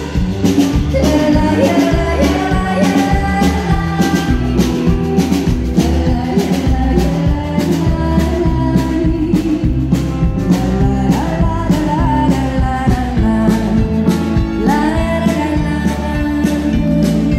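Country music played over a PA: a woman singing into a microphone over guitar and a steady drum beat.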